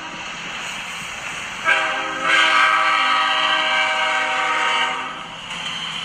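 Train horn passing close by: one blast cuts off right at the start, then, after about a second and a half of the train's running noise, a long blast of about three seconds sounds and stops, leaving the noise of the passing train.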